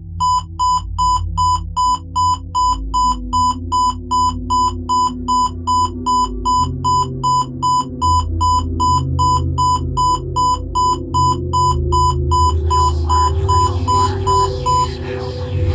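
Digital watch alarm beeping: a fast, even run of short, high electronic beeps, about two to three a second, over a low ambient music drone. The beeping stops near the end as a hiss rises.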